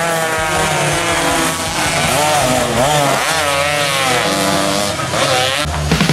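Two-stroke 125cc underbone racing motorcycles passing at speed. Their engines' pitch rises and falls as the riders work the throttle and shift gears, with more than one bike heard at once. The sound cuts off abruptly near the end.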